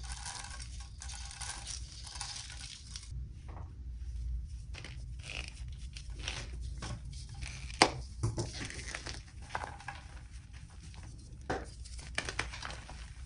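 Soft dyed gym chalk blocks coated in cornstarch and holi powder, pressed and crushed by hand: a rustling hiss at first, then irregular crunching and crumbling with one sharp crack about eight seconds in.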